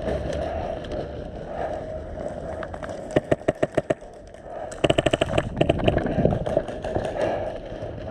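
Airsoft guns firing: a string of about seven shots about three seconds in, then a rapid full-auto burst of about ten shots about five seconds in, with a few more shots after it, over steady background noise.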